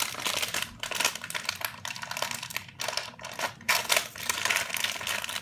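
Crinkling and crackling of a plastic blind-bag wrapper being torn open and handled, a dense run of rapid crackles.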